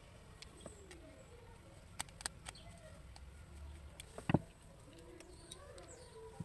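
Small plastic clicks and taps as a two-pin mains plug is handled and opened up, with one louder knock about four seconds in. Faint low gliding bird calls are heard in the background.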